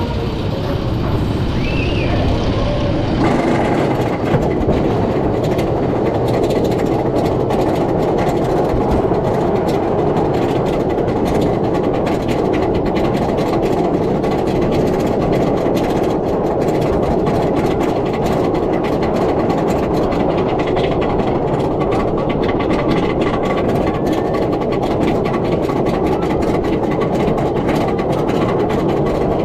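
Iron Gwazi roller coaster ride: the train running along the track with wind rushing over the microphone. The noise jumps up about three seconds in and then holds as a loud, steady rushing.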